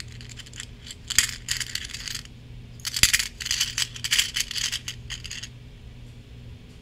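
Small metal gears clinking and jingling as fingers rummage through them in a small container, in two spells of quick, sharp clicks that stop a little over five seconds in.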